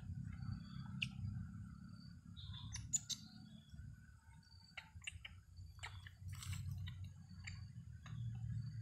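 Quiet outdoor ambience: a steady low hum with scattered small clicks and rustles, the sharpest about three seconds in, and a few short, high chirps.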